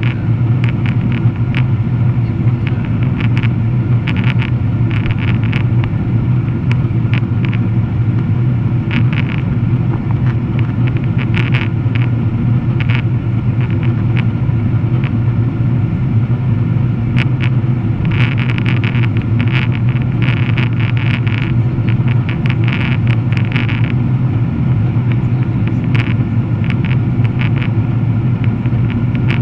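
Boeing 777-300ER cabin noise in flight: the steady, loud drone of the GE90 engines and rushing airflow, with a deep hum underneath. Light irregular rattling ticks come and go, thickest about two-thirds of the way through.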